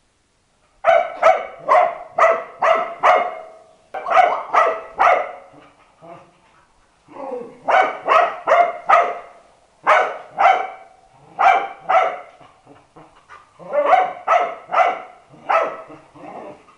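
A black-and-white dog barking repeatedly, in quick volleys of about three to six barks, two or three a second, with short pauses between volleys.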